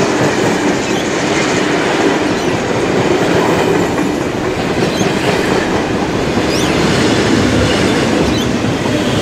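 Steam-hauled heritage passenger train passing close by, hauled by 59 class steam locomotive 5917: steel carriage wheels clatter steadily over the rail joints as the coaches roll past.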